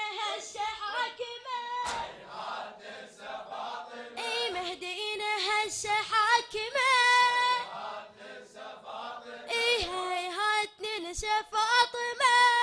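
Unaccompanied Shia lament (latmiya) sung into a microphone in a high, boyish voice, with long wavering held notes. A few sharp slaps from the mourners' chest-beating cut through, about two seconds in and twice near the end.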